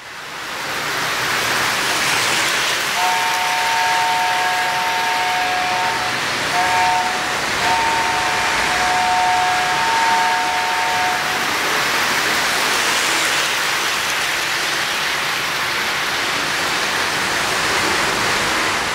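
O-scale three-rail Lionel model freight train rolling past, its wheels on the track making a steady rushing rattle. From about three seconds in to about eleven seconds, the train's sound system gives a steady two-note signal: a long blast, a short one, then another long one.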